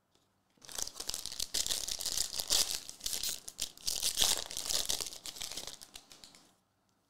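Foil wrapper of a Panini Prizm basketball trading-card hobby pack crinkling and tearing as it is ripped open by hand, starting about half a second in and stopping near the end.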